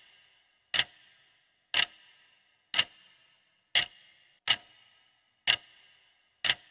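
Clock-ticking sound effect counting down the answer time, one sharp tick about every second, each with a short ringing tail.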